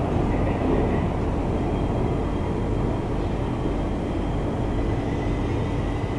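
Steady rumble of a BTS Skytrain car heard from inside, with a faint high whine held throughout.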